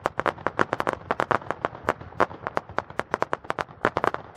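Fireworks going off in a rapid, irregular string of sharp cracks and pops, several a second.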